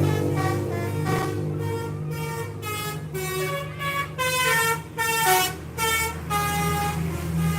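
Bus telolet horn, a multi-tone air horn, playing a quick melody of short stepped notes over the steady hum of the bus's engine.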